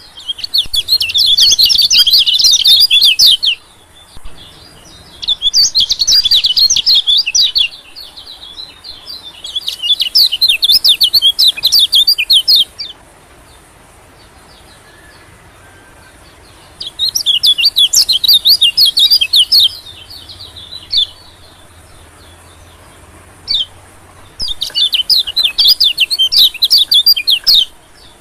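White-eye (pleci) song used as a bird lure: bursts of rapid, high twittering chirps about three seconds long, repeated five times with short pauses between.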